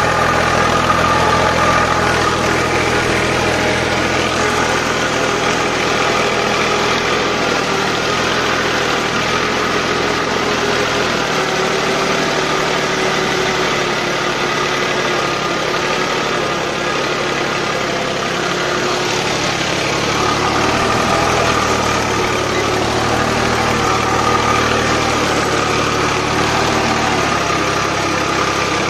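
Sonalika 750 tractor's diesel engine running steadily under load as it pulls a two-bottom mouldboard plough deep through the soil, its note shifting slightly partway through.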